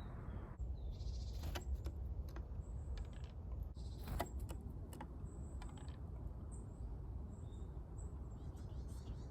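Faint short high bird calls scattered through, with a few sharp clicks or taps, over a steady low rumble of wind on the microphone.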